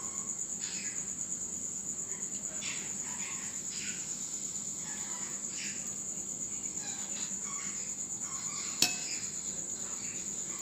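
A high, even, pulsing insect trill, like a cricket, over soft wet scraping of a knife scoring raw chicken legs in a glass bowl, with one sharp click about nine seconds in.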